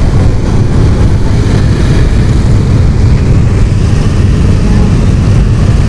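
Many motor scooters running together in a dense, slow-moving convoy: a loud, steady, low rumble of engines and traffic.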